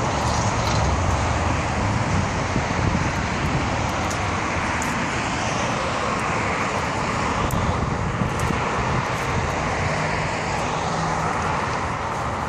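Steady road traffic, cars passing on a multi-lane street. Near the start, the low exhaust note of a Dodge Challenger R/T's HEMI V8 driving past fades into the traffic.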